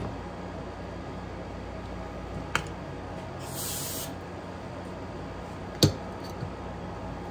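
A short spray hiss lasting well under a second, around the middle, between sharp clicks of tools or parts being handled; the loudest knock comes near the end. A steady low hum runs underneath.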